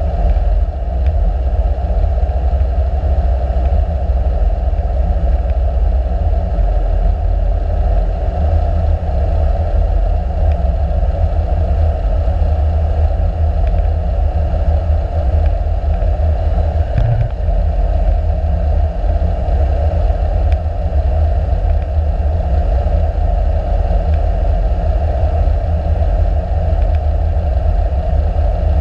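Light sport aircraft's engine and propeller droning steadily inside the cockpit, mixed with a hiss of rushing air.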